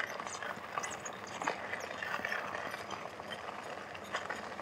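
Bicycle tyres rolling over a gravel trail: an even crunching hiss with scattered small clicks and rattles.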